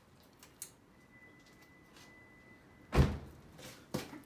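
A car door shuts with a solid thump about three seconds in, and a lighter knock follows near the end. Before the thump, a faint steady high tone cuts off just as the door closes.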